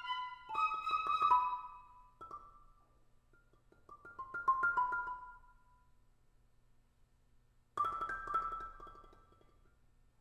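Tuned mallet percussion playing short phrases of rapidly repeated high notes, about half a second in, about four seconds in and near the end, with quiet gaps between.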